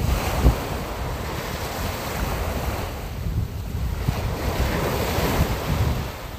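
Ocean surf washing onto a sandy beach, swelling near the start and again about five seconds in, with wind buffeting the microphone as a low rumble underneath.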